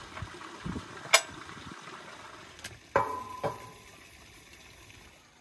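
Cast-iron cookware clanking on a steel stovetop: a sharp metal clink about a second in, then a cast-iron skillet set down with two knocks about half a second apart, the first leaving a brief ringing tone.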